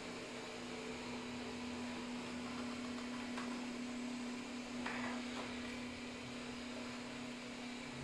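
Xiaomi Mi Robot Vacuum-Mop 2 Pro running, a steady hum with the even rush of its suction fan and brushes. A few faint clicks come about halfway through.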